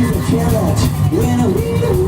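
Live rock band playing an instrumental passage: drum kit and bass keep a steady beat under a melody line that slides up and down in pitch.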